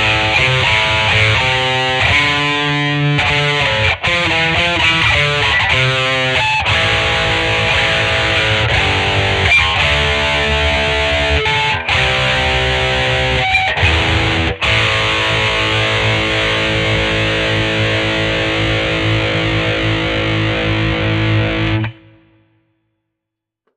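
1982 Vantage VE-550 electric guitar played with a distorted tone: a riff of changing notes and chords, then one chord left to ring for about seven seconds until it is cut off suddenly near the end.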